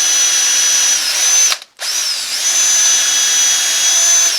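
Electric drill with a small bit boring a hole into heart pine, its motor whining steadily. It stops abruptly a little over a second and a half in, then starts again, with brief dips in pitch as the bit bites.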